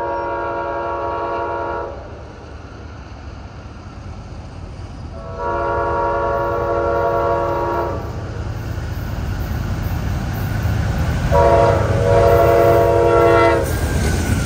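Amtrak GE Genesis diesel locomotive sounding its multi-chime air horn in the grade-crossing pattern as the train approaches: a long blast ending about two seconds in, a second long blast, then a short one and a final long one. Beneath it the low rumble of the train grows, loudest as the locomotives pass close near the end.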